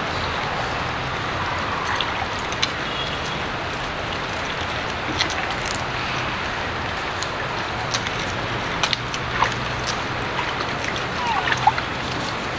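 Steady outdoor hiss with a faint low hum, scattered small clicks, and a short falling chirp a little before the end.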